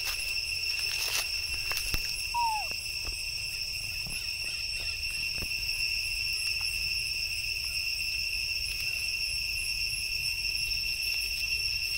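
Steady high-pitched insect drone, holding one high note with higher overtones throughout. About two and a half seconds in, a single short falling squeak, with a few faint clicks around it.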